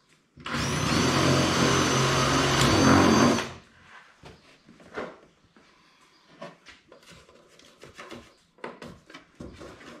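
Cordless drill boring a hole through plywood for about three seconds, starting about half a second in, its motor whine steady until it stops. Then scattered light ticks of rain on the metal roof.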